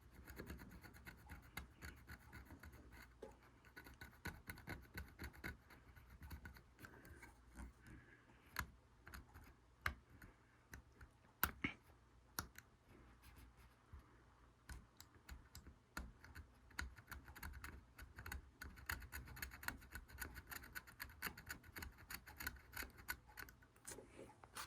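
X-Acto hobby-knife blade scraping flakes of clear coat off a plastic pinball star rollover: faint, irregular scratching with many small ticks and a few sharper clicks.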